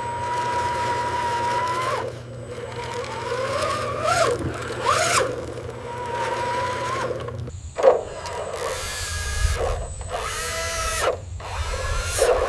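A small machine motor whining, holding a steady pitch, then rising and falling in pitch a few times. About two-thirds of the way through it gives way to a low mechanical rumble with several sharp knocks and clatters, the first of them the loudest.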